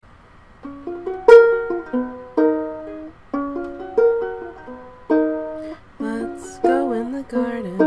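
Ukulele playing a gentle picked song intro: single plucked notes and chords, each ringing out and fading. Near the end a wavering, pitch-bending line joins in.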